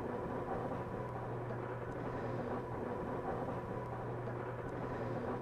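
Steady low background hiss with a faint, even hum: room tone, with no distinct event.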